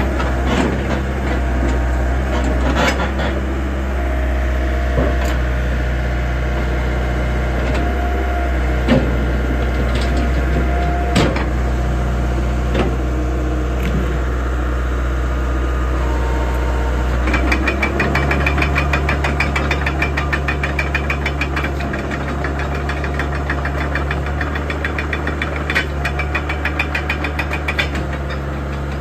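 Diesel engine of a Doosan DX75 excavator running steadily, with scattered sharp knocks. About seventeen seconds in, the engine note changes and a fast, even rattling sets in.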